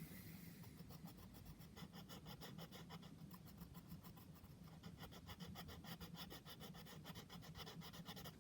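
Faint, rapid back-and-forth scratching of a pen or pencil colouring in, about eight strokes a second.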